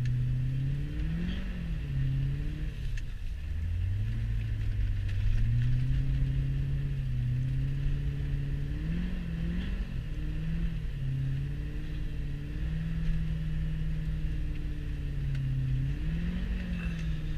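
Straight-piped C4 Corvette's 5.7-litre V8 heard from inside the cabin, its exhaust note rising and falling with the throttle on a snowy road. Several short rev blips come between steadier stretches, and the note dips about three seconds in before climbing again.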